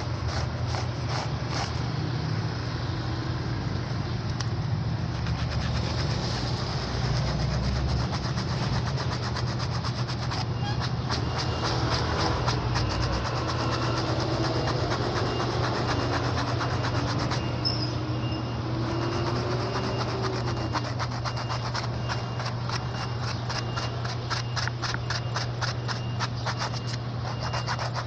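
Motorized shoe repair machine running steadily, a constant motor hum with a fast, even clatter over it, while the shoe's sole is worked.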